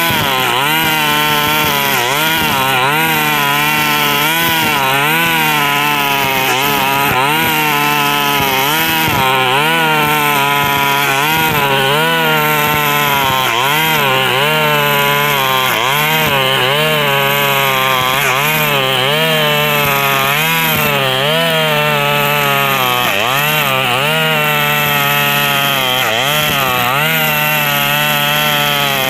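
KNC 4400 two-stroke brush cutter engine running hard and very loud, its pitch dipping and recovering every second or two as the 2.2 mm square nylon line bites into thick grass. The engine note is extra loud because the exhaust muffler is rusted through and full of small holes.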